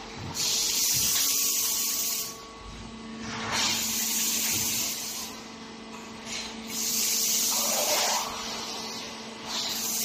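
Sofa compression roll-packing machine at work: about four long bursts of hissing, each a second or two long, over a steady machine hum.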